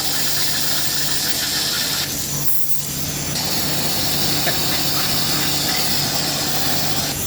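Pressure washer spraying, a steady hiss of water over a low motor hum, washing honing grit and metal shavings out of a freshly honed engine block. The spray cuts out briefly about two and a half seconds in, then starts again.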